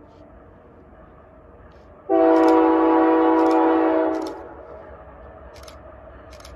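Nathan K3L five-chime air horn on a CP AC4400CWM locomotive sounding one long, steady blast of about two seconds, about two seconds in. It is part of the horn pattern for a level crossing. Fainter horn sound rings on before and after the blast, echoing across the open country.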